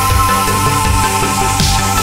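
Electronic background music with sustained tones and a changing bass line.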